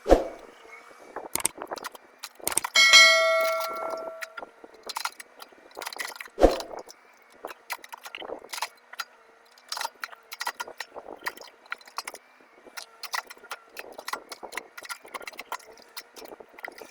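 Komatsu PC30-7 mini excavator at work: irregular metallic clanks and knocks, with one loud ringing clang about three seconds in and another heavy knock a few seconds later, over a faint steady hum.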